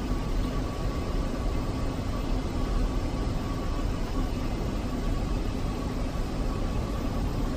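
Steady airliner cockpit noise in flight: an even rush of air and engine drone with a low hum and a faint steady high tone.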